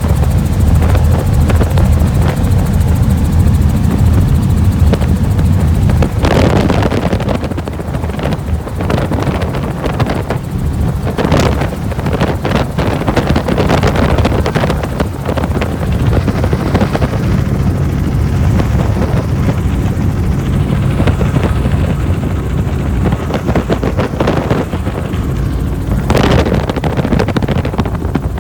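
Helicopter running steadily, its rotor and engine giving a loud, deep throb, with a few brief rushes of noise over it.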